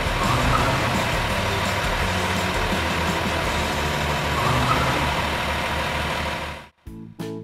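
Engine sound effect of a heavy construction vehicle running, with a steady low pulse. Near the end it cuts off suddenly and light plucked music notes begin.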